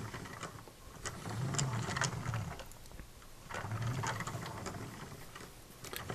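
Brick-built model steam locomotive pushed by hand back and forth on plastic toy track: its geared axles and coupling rods rumble and click in strokes about a second long, with short pauses between. The front sections of the coupling rods are off, so it rolls freely without binding.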